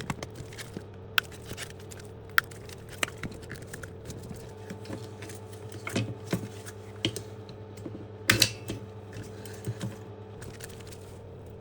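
Irregular small clicks, snaps and scrapes of a flathead screwdriver prying a glued-on rubber tire and its tabs off a Roomba 960 drive wheel, with a louder cluster of snaps about eight seconds in.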